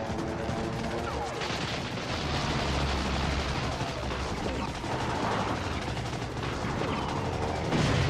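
Wartime air-combat sound track: dense machine-gun fire and explosions over the drone of aircraft engines.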